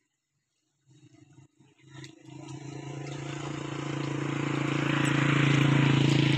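Silent for about the first second, then a motor engine's hum fades in and grows steadily louder, as if approaching.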